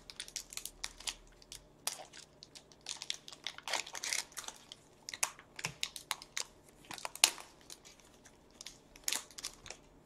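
A pack of NBA Hoops Premium basketball cards being torn open by hand, its plastic wrapper rustling and crackling in short, irregular bursts.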